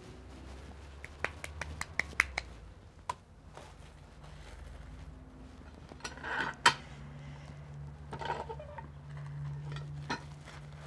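Tortilla press being worked by hand: a run of sharp clicks and knocks from the press and its lever, with a loud clack about six and a half seconds in as the handle is brought down.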